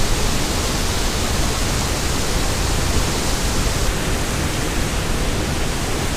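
Steady rushing of a waterfall pouring into a pool close by, an even unbroken wash of water noise; its upper hiss turns slightly duller about four seconds in.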